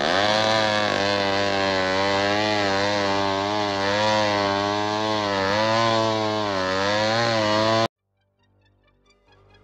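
Chainsaw engine running loudly, its pitch wavering up and down as the throttle moves. It starts abruptly and cuts off suddenly near the end.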